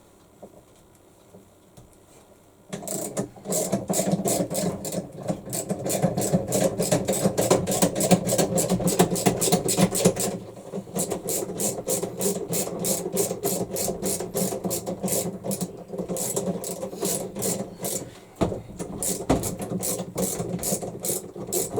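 Ratchet wrench clicking in a quick, even rhythm as it turns the forcing bolt of a puller drawing a washing-machine tub off its shaft. The clicking starts about three seconds in and carries on, easing a little near the middle.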